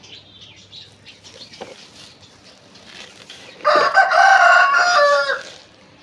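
A rooster crows once, a single loud call of under two seconds starting about three and a half seconds in, trailing off at the end.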